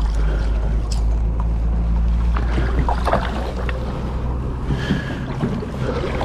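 Wind buffeting the microphone as a steady low rumble, with water splashing as a hooked cherry salmon thrashes at the surface near the bank. Sharper splashes come about three seconds in and again near five seconds.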